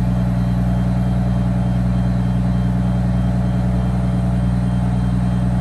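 Bus engine idling steadily, freshly started and still warming up.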